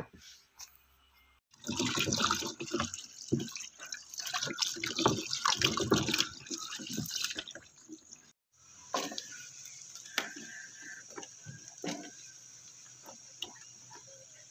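Tap water running and splashing into a plastic bowl as beans are washed by hand, with knocks and rustling. After a break about eight seconds in, a steady hiss with scattered pops and ticks from the beans blanching in a pan of hot water.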